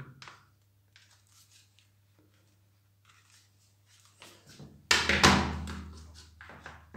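Plastic housing of a Nilfisk G3 pressure washer spray gun being worked apart with a flat screwdriver: faint clicks and scrapes, then one sudden loud plastic knock about five seconds in, followed by lighter clicks.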